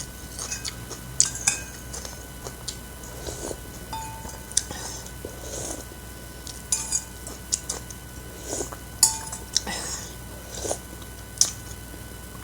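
Eating utensils clinking and tapping against a bowl of noodle soup, in scattered irregular clicks with brief soft mouth and handling noises between them.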